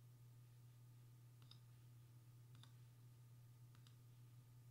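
Near silence with three faint computer mouse clicks about a second apart, over a low steady hum.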